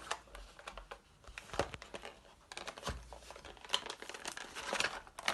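Cardboard packaging of a Pokémon trading card theme deck being torn open by hand: scattered crinkling, tearing and small rustles, with brief quiet pauses.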